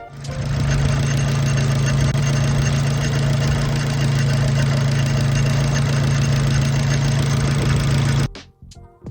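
Abarth 500's 1.4-litre turbo four-cylinder running steadily at idle, close to the engine bay, with the abnormal noise from the worn aftermarket ribbed drive belt that the owner blames for a squeal in the first minutes after starting. It cuts off abruptly near the end.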